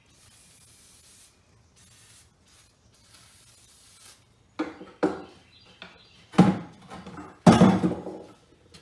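Aerosol can spraying rust-preventive oil onto a cast steel anvil: a faint hiss that starts and stops in short bursts. In the second half come five loud knocks and rubbing sounds on the wooden workbench, the last two the longest and loudest.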